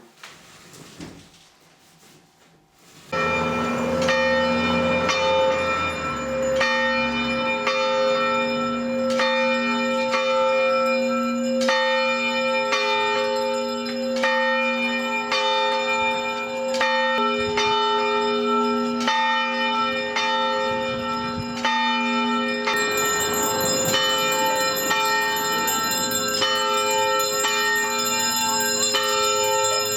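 Church bells begin ringing about three seconds in, then go on in a steady run of strokes, more than one a second, each tone ringing on into the next.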